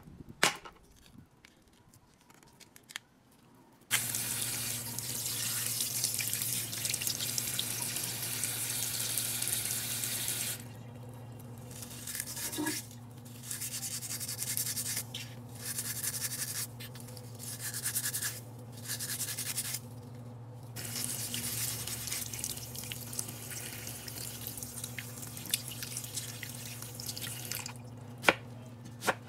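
Mussel shells clicking against each other, then about four seconds in a tap starts running into the sink. A stainless steel scouring ball rasps over the shells under the water, and the scrubbing noise stops and starts several times.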